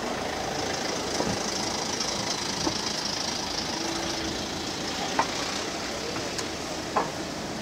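Steady street noise of idling vehicle engines, with a few faint knocks.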